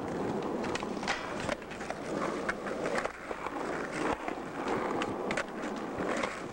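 Skateboard wheels rolling on rough asphalt, with several sharp clacks of the board.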